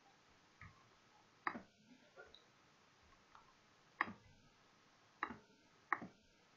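Computer mouse clicking: a few faint single clicks at uneven gaps of about a second.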